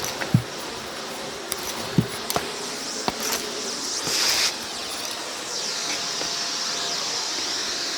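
Vacuum cleaner running steadily with a high hiss, scattered sharp clicks and knocks as debris rattles up the nozzle, and a brief louder surge of suction about four seconds in.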